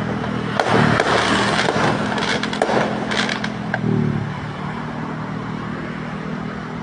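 Fireworks popping and crackling in rapid clusters for the first four seconds or so, then dying away, over a steady low engine hum that gets stronger near the end.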